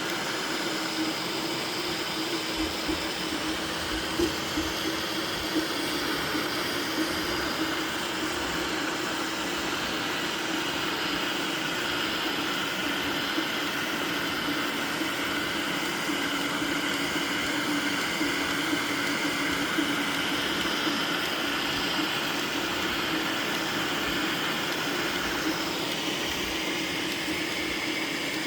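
Anycubic FDM 3D printer running a PLA print: a steady hum from its fans, with the stepper motors whining in tones that shift as the print head moves.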